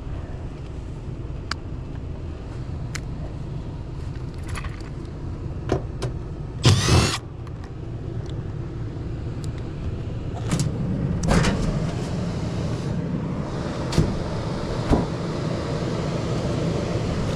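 Steady low hum of a Carrier heat pump package unit's blower running while the condenser stays off, with scattered clicks and knocks of handling around the open unit and a louder clatter about seven seconds in and again about eleven seconds in.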